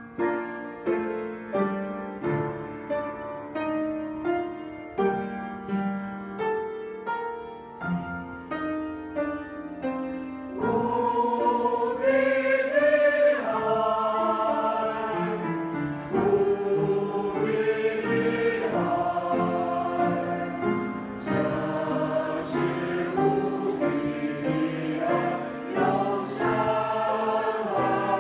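Piano introduction of evenly struck notes, then a mixed church choir enters about ten seconds in, singing a Chinese-language hymn over the piano.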